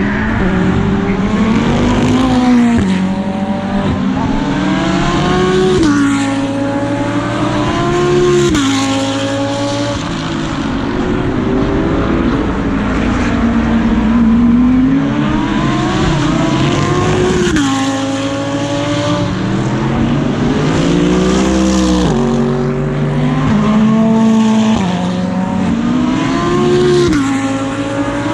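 GT3 race car engine heard onboard at racing speed. It revs up repeatedly, the pitch dropping sharply at each upshift, and it winds down and back up between the corners.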